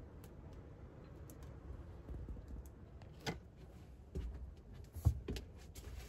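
A few light knocks and clicks, four of them in the second half, over a faint low rumble.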